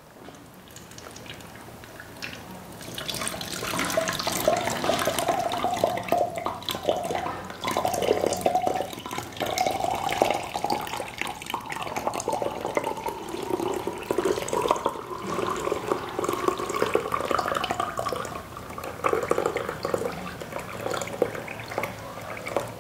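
A boiled home remedy being strained: liquid pours in a thin stream from a steel pan through a plastic strainer into a plastic jug, splashing and trickling. The pouring gets louder about three seconds in and runs on steadily.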